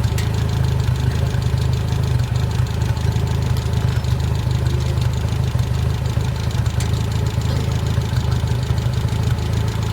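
Engine idling steadily with an even, rapid low pulse.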